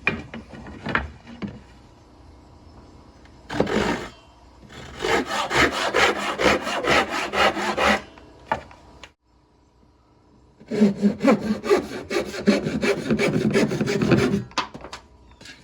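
Handsaw cutting through wood in two spells of quick, even strokes, about six a second, with a short pause between them.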